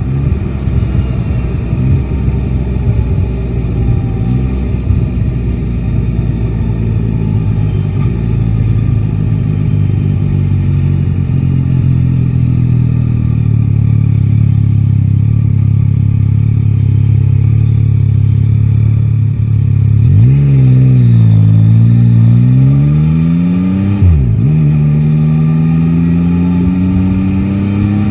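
Yamaha Tracer 9 GT motorcycle's three-cylinder engine running steadily at low revs. About twenty seconds in it accelerates, the revs climbing, then dropping suddenly at a gear change around twenty-four seconds and climbing again.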